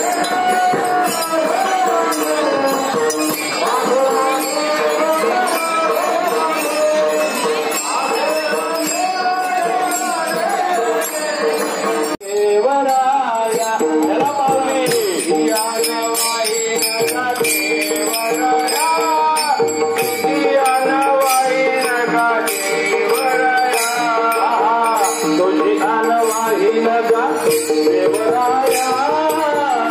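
Devotional kirtan singing: voices singing over a steady held drone, with small hand cymbals jingling in rhythm. The sound breaks off sharply for a moment about twelve seconds in, then the singing carries on.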